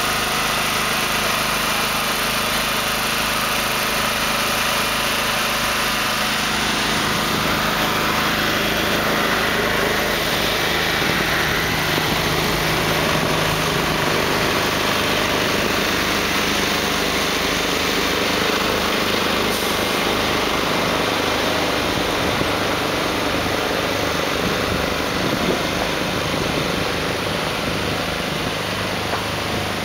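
Diesel engine of a heavy-haul modular trailer transport running steadily. About seven seconds in, the even engine note gives way to a rougher, noisier rumble.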